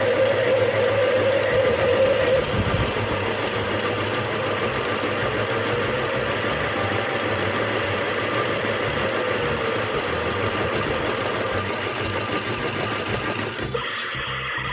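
Toy washing machine's small battery motor running steadily, spinning the drum with a buzzing hum and a whine that sinks slightly in pitch partway through.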